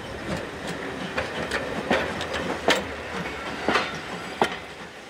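Train running along the track, its wheels clicking irregularly over rail joints above a steady rumble.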